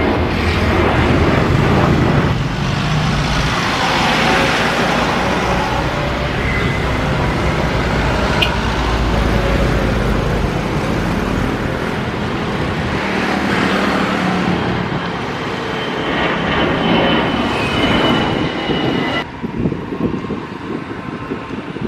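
Jet airliner engines at take-off power, a Boeing 737 and an Airbus A320 climbing away. The sound is a loud, continuous rush of noise that swells and fades as each aircraft passes, with a faint high whine late on. It changes abruptly about nineteen seconds in at a cut between clips.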